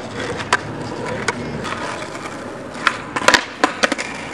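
Skateboard wheels rolling on asphalt, with sharp clacks of the board hitting the pavement, a few spread out and a loud cluster of them a little past three seconds in.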